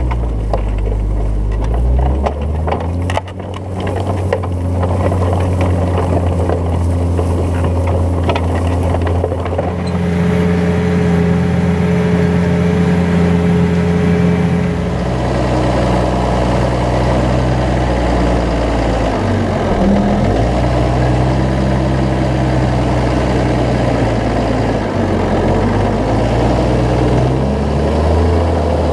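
New Holland T7060's six-cylinder turbo-diesel engine running while pulling a plough. The engine note shifts a few times and twice dips briefly before recovering. Some rattling clicks come in the first few seconds.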